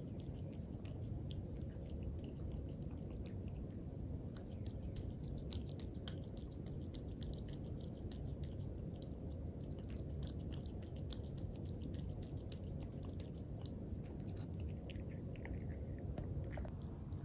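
Norwegian Forest Cat crunching dry kibble from a ceramic bowl: a fast run of crisp chewing clicks that goes on without a break.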